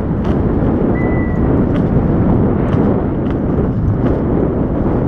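Wind rushing over the microphone and a scooter's wheels rolling at speed while a German Shepherd pulls it, with a few scattered clicks and a brief high squeak about a second in.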